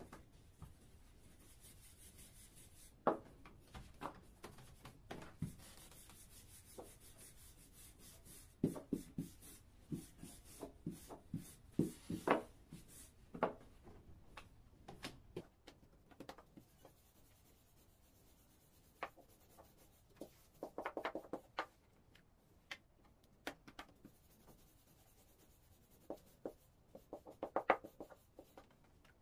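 Hands pressing and patting balls of baklava dough flat on a floured wooden table, then a rolling pin rolling the dough out: faint scattered soft knocks with stretches of rubbing and scraping.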